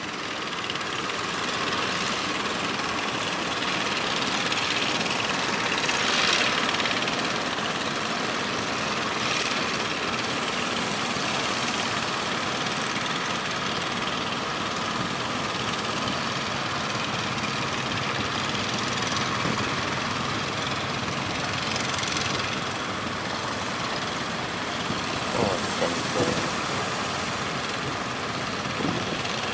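Fishing boat engines running under a steady rush of strong wind and surf, which swells louder a couple of times.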